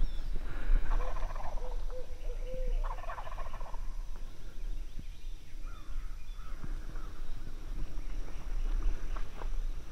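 Osceola wild turkey gobbling: a rattling call that starts about a second in and lasts about two seconds.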